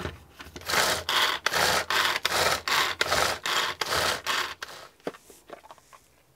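A hand-powered Tupperware herb chopper being worked in about ten quick strokes, each one a rasping whirr as the blades spin through the basil, garlic and sunflower seed mix to chop it finer, then a few light clicks.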